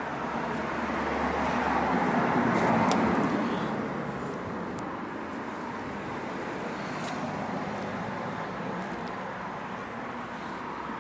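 A road vehicle passes, its noise swelling for a couple of seconds and then fading, over a steady background of distant traffic.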